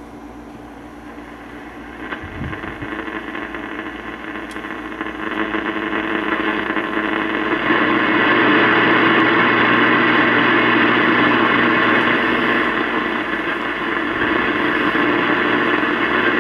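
1937 Philco 37-610 tube radio's loudspeaker hissing with shortwave static as the dial is turned, with no station coming in: little is receivable on the lower shortwave bands in daytime. The noise gets louder about two seconds in and again about halfway through.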